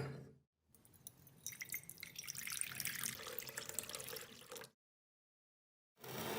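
Liquid splashing and dripping with many small clicks, lasting about four seconds before it cuts off; a short burst of similar sound starts near the end.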